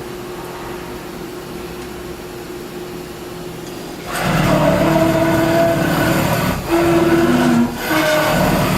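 Haas VF-0E CNC mill's brushless axis servo and ball screw driving the table along its X axis: a loud whining traverse starts about four seconds in, shifting pitch in steps and briefly pausing twice. Before it, a steady quieter machine hum.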